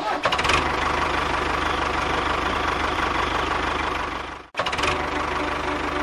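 Tractor engine running with a fast, steady knock. It cuts off abruptly about four and a half seconds in and starts again at once.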